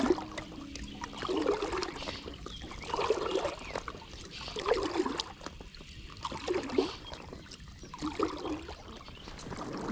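Water splashing and trickling close to a float tube, in rhythmic surges roughly every one and a half to two seconds.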